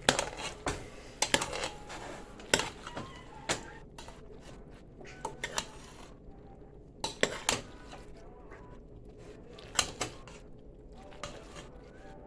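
Kitchen utensils and cookware clinking and knocking against each other: irregular sharp clicks, some with a short ring.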